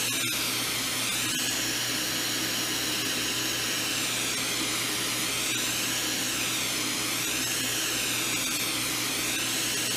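Gas torch flame hissing steadily as it heats glass rods, the hiss slowly wavering in pitch, over a steady low hum.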